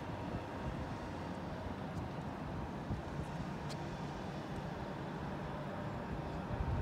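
Steady outdoor background noise, with a faint high steady tone running through it.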